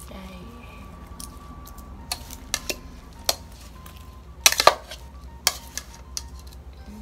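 Metal spoon knocking and scraping against a plastic bowl while mixing sliced fish and greens, in scattered clicks with a quick cluster of louder knocks about halfway through.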